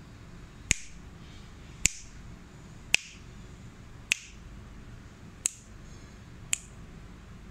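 Six sharp finger snaps, about one a second.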